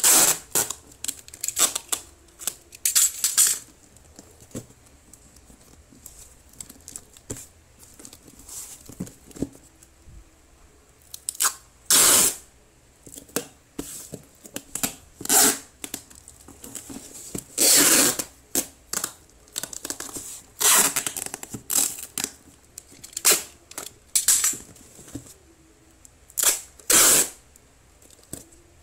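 Clear packing tape being pulled off the roll in a series of loud rips, each up to about a second long, as a cardboard box is taped shut, with quieter rustling and handling of the box between rips.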